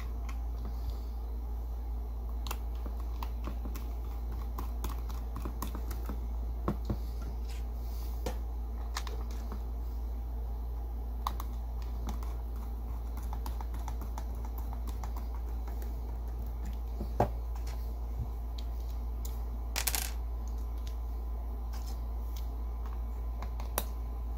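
Small scattered clicks and ticks of a screwdriver turning screws into the plastic housing of a Cobra Dynamike Plus CB microphone, over a steady low hum. A sharper click comes about two-thirds of the way through, and a short rattle a few seconds later.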